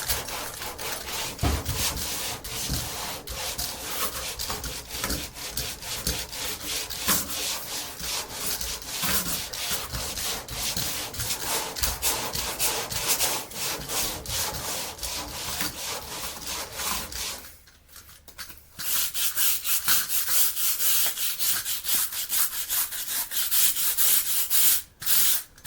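Worn sandpaper rubbed by hand in rapid back-and-forth strokes over body filler that is only half cured and still slightly wet on the surface. The strokes stop briefly about two-thirds of the way through, then resume.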